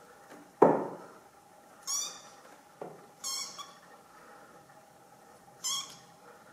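A young kitten hissing in short, sharp, high bursts, four times over a few seconds, at a hand reaching toward it. A loud thump comes about half a second in.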